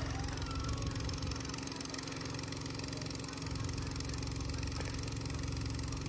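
Diesel engine of a tracked excavator running steadily at a low, even pace.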